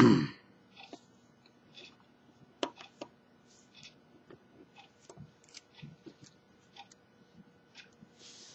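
Light scattered clicks and ticks of a small screwdriver and phone parts being handled as the last screw is taken out of a Samsung Galaxy S4, with one sharper click a little over two and a half seconds in. A short louder noise comes right at the start.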